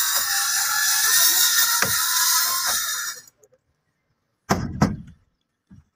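A dense hiss with a few soft thuds that cuts off abruptly about three seconds in, followed by two heavy knocks a third of a second apart and a faint third knock near the end.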